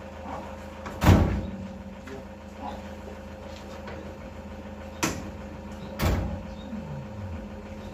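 Rear doors of a panel van slammed shut: one loud bang about a second in, then two shorter knocks around five and six seconds, over a steady low hum.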